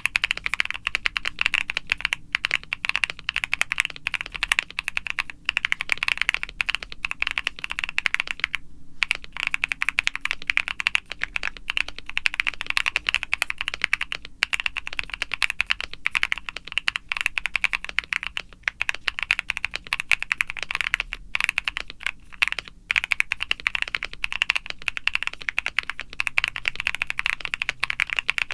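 Continuous typing on a mechanical keyboard: an aluminium CreateKeebs Luminkey75 with a polycarbonate plate and case and plate foam, lubed Akko Creamy Lavender Pro tactile switches and PBT keycaps. The keystrokes stop briefly about nine seconds in.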